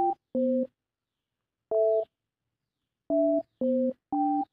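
Phone keypad touch-tones (DTMF): six short two-tone beeps as a voicemail box number is keyed in at the voicemail prompt. The beeps are unevenly spaced, with longer pauses after the second and third.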